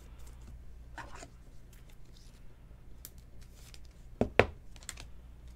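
Trading cards and plastic card holders being handled: faint slides and light clicks, with a sharp double clack a little past four seconds in as something is set down.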